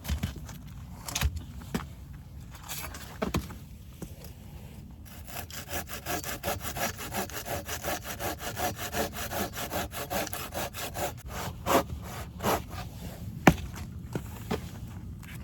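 Samurai hand saw cutting through a piece of gathered wood: a few knocks as the wood is handled, then about six seconds of quick, even saw strokes, followed by several sharper knocks.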